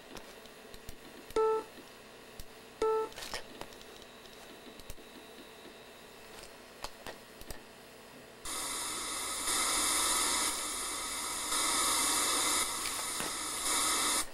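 Mac OS 9 Sound control panel speaker test played through a Power Macintosh 7300: a steady hiss of test noise that steps up and down in level about once a second, stopping shortly before the end. Earlier, two short beeps about a second and a half apart, and a few faint mouse clicks.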